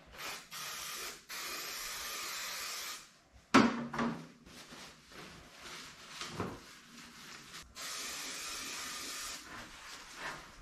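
Aerosol can of silicone-remover degreaser spraying in short then long hissing bursts onto the car's engine lid, a sharp knock about three and a half seconds in, then cloth wiping over the metal, and a second long spray near the end.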